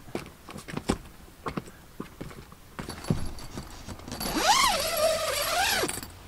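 Knocks and clicks of a man climbing a telescopic aluminium ladder and hauling himself up into a roof tent, followed about four seconds in by a louder, wavering high-pitched sound that rises, holds and falls for under two seconds.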